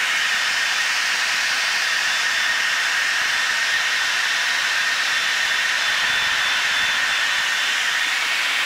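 Steady rushing hiss inside a Blue Angels jet's cockpit in flight, from the jet and its airflow, with a faint steady high whine running through it.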